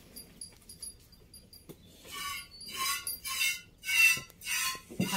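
Hand milking a Gir cow into a small steel bowl: about six short hissing squirts of milk hitting the metal, roughly two a second, starting about two seconds in, each with a slight metallic ring.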